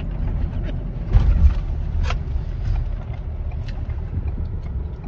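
Steady low rumble of a car heard from inside the cabin, with a louder low thump about a second in and a few short clicks and rustles from handling.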